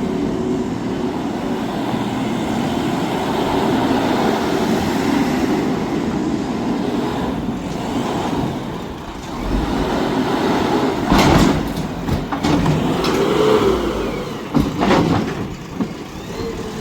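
JCB backhoe loader's diesel engine running steadily as the machine is worked, with a few sudden sharp clatters in the second half.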